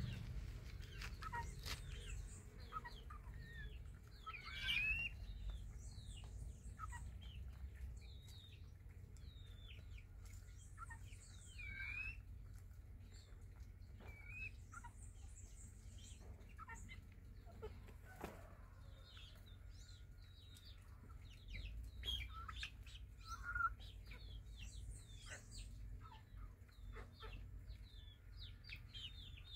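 Young chickens peeping and clucking as they forage: many short chirps that fall in pitch, scattered throughout, a few louder ones about five seconds in and near 24 seconds, over a low steady rumble.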